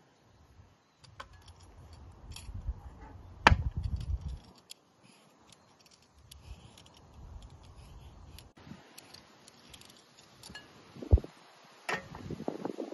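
Scattered clinks and knocks of kitchen utensils and a glass bowl being handled on a wooden table, with a sharp knock about three and a half seconds in and another about eleven seconds in.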